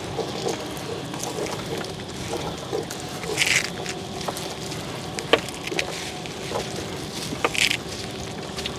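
A small boat's motor running steadily, with scattered knocks and clicks as a gill net is hauled in and fish are picked out. Two short splashes come about three and a half seconds in and again near the end.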